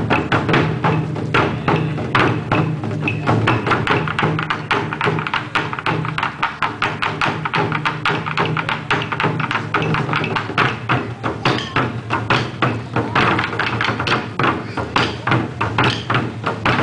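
Ensemble of taiko drums on slanted stands played together in a fast, steady rhythm: many sharp strikes a second over a continuous deep drum boom.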